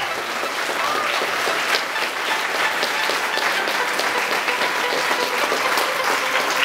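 Crowd applauding: sustained, dense clapping.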